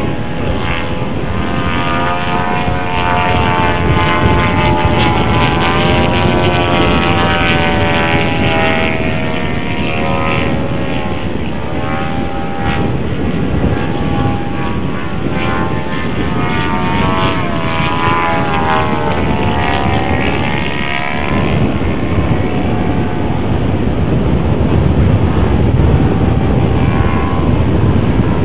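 Engine of a radio-controlled scale model airplane in flight, its propeller-driven note rising and falling in pitch as the plane manoeuvres overhead.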